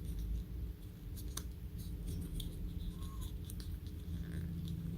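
Light plastic clicks and taps as the parts of a Ford key fob, its circuit board and rubber button pad, are handled and fitted into a new plastic case, over a low steady hum.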